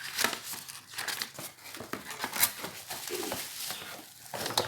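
Packaging rustling and crinkling, with irregular sharp clicks and knocks, as an electric kettle cooker and its parts are unpacked from the box.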